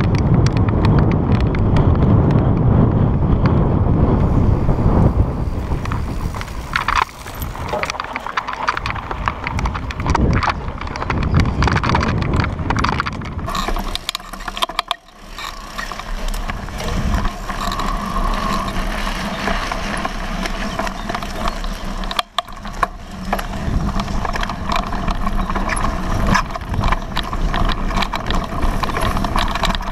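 Mountain bike ridden on a paved track, heard through a helmet-mounted action camera. Wind rumbles heavily on the microphone for the first few seconds, then come the tyre noise and the clatter and rattle of the bike over the bumps.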